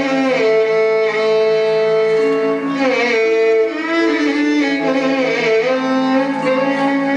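Odissi dance accompaniment music: a melody of long held notes that slide between pitches, over a steady low drone.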